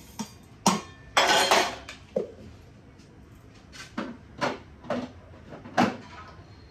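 Steel bowls and a steel mixer-grinder jar clinking and knocking on the kitchen counter as the jar is loaded and set on the mixer. A short scraping rush comes about a second in, then four or five separate knocks.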